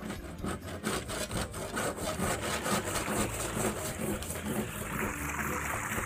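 A rapid rough rattling for the first few seconds, then water starting to pour and splash down a small faux-rock pondless waterfall once its pump is switched on, the splashing building over the last second or two.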